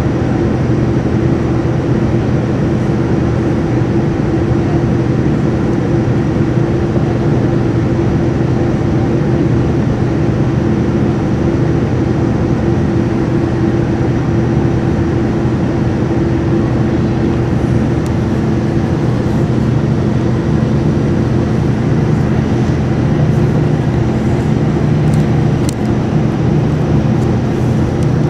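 Boeing 787-9 cabin noise on descent: its Rolls-Royce Trent 1000 turbofans running steadily with a constant low hum under the rush of airflow, heard from inside the cabin. A few faint ticks come in the second half.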